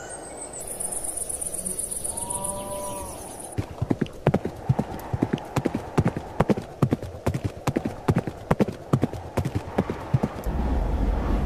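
Horses galloping over grass: a fast, uneven run of hoofbeats lasting about seven seconds. Before it there is a high shrill buzz, and a low rumble starts near the end.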